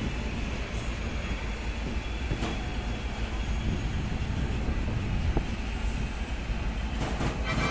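Passenger train pulling slowly out of a station, heard from inside a coach: a steady low rumble of wheels on the track with a few faint single clicks.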